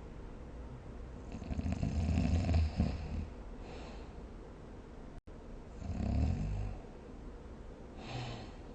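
A sleeper snoring: two loud, low, rattling snores about four seconds apart, with a short breathy sound between them and a soft brief snore near the end. The sound drops out for an instant about five seconds in.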